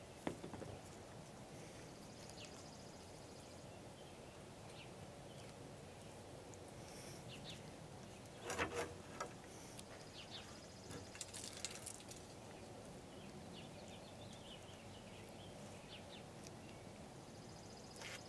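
Quiet outdoor background with faint high bird chirping, broken by scattered light clicks and knocks as raw chicken drumsticks are hung on a stainless-steel wire drumstick rack and a rub shaker is handled; the loudest knocks come about eight to nine seconds in.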